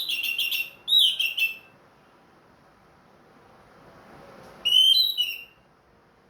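Orange-headed thrush singing: two short whistled phrases close together at the start, and a third about four and a half seconds in.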